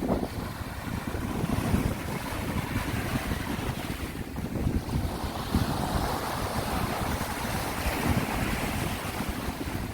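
Sea waves washing onto the shore, with a wash swelling in the middle, while wind gusts buffet the microphone with a low rumble.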